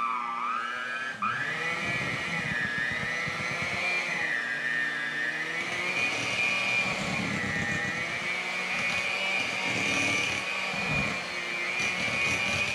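Hand-held electric mixer running, its beaters churning thick mashed potatoes; the motor's whine climbs in pitch over the first second as it speeds up, then holds steady with a slight waver.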